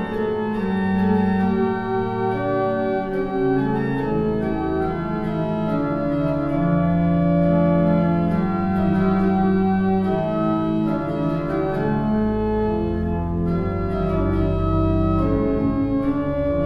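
Organ music: slow, sustained chords held and changing gradually, with a deep bass note coming in about twelve seconds in.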